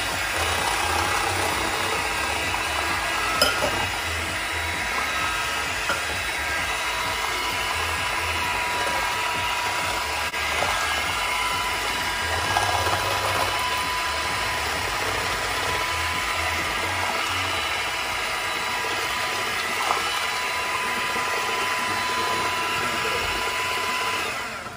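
Electric hand mixer running steadily, its beaters churning a wet soaked-bread and egg-custard batter in a glass bowl. The motor cuts off suddenly near the end.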